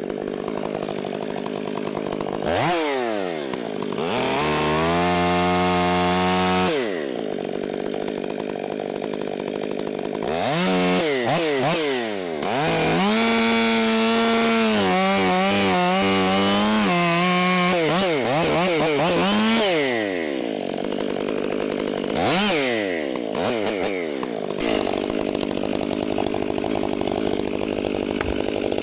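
Chainsaw revving up and cutting wood, held at high revs for a few seconds and then again for about nine seconds, the pitch sagging under load during the cuts, and dropping back to idle between, with a short blip of the throttle near the end.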